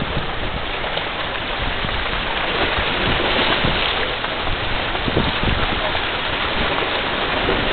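Wind buffeting the camera microphone: a steady rushing hiss with irregular low rumbling gusts.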